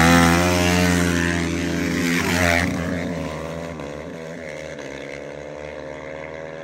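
KTM dirt bike engine revving up hard as the bike pulls away, changing pitch at a shift about two and a half seconds in, then fading steadily into the distance.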